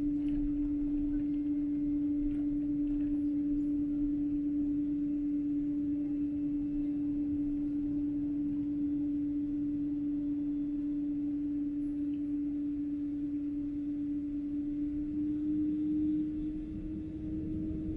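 Jet airliner heard from inside the cabin while taxiing: a steady hum at one pitch over a low rumble, the hum rising slightly near the end as the rumble grows.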